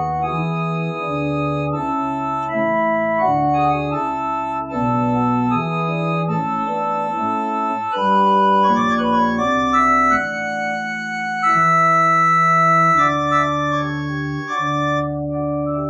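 Church organ playing slow, held chords over a moving bass line: the closing music of the service after the final prayer.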